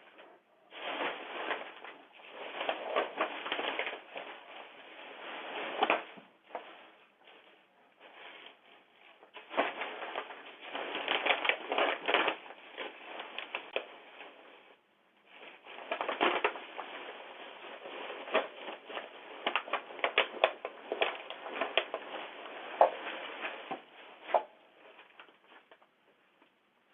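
A bear making rapid crunching and crackling noises in three long spells, heard through a doorbell camera's thin-sounding microphone.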